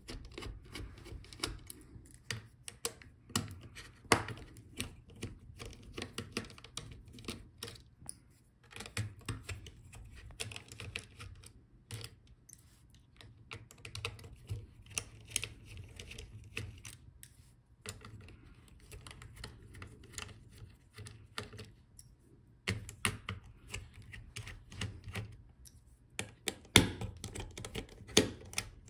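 Precision screwdriver unscrewing small screws from a laptop palmrest and hinge area: a string of irregular light clicks and taps of the metal tip and tool on the screw heads and plastic chassis, with a few louder knocks, about four seconds in and near the end.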